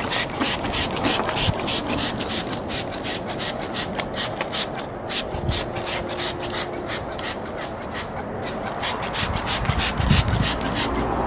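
Cloth rubbing back and forth over the car's surface in quick, even strokes, about three to four a second, wiping down a spray cleaner.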